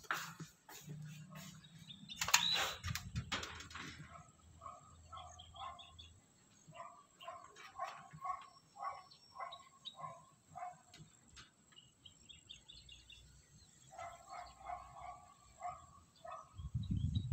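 Birds chirping in runs of short repeated notes. A cluster of sharp clicks comes about two seconds in, and a low rumble starts near the end.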